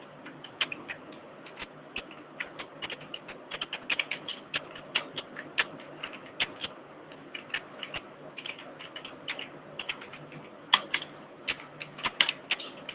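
Typing on a computer keyboard: irregular key clicks, a few per second with short pauses. The loudest keystrokes come near the end.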